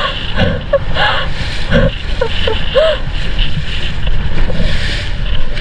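Low rumble of a boat on the water, with wind buffeting the microphone, and a few short voice sounds in the first three seconds.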